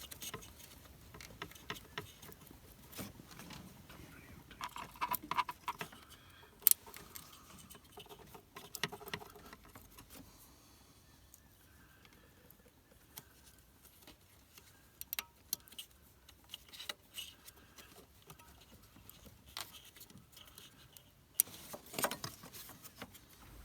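Scattered clicks, taps and light metallic rattles of hands and tools working at a part in the van's engine bay, trying to pull it loose. A sharp click comes about seven seconds in and another cluster near the end.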